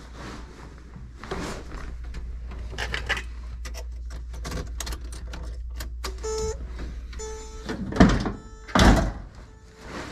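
Handling and door noises at a 1977 Datsun 280Z, then the car's warning buzzer beeping about once a second from about six seconds in, as the ignition key goes to on. Two loud thumps near the end are the loudest sounds.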